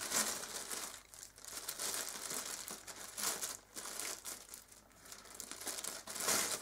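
Clear plastic bag crinkling and rustling in irregular handfuls as it is pulled off a lathe chuck key, with a louder crinkle near the end.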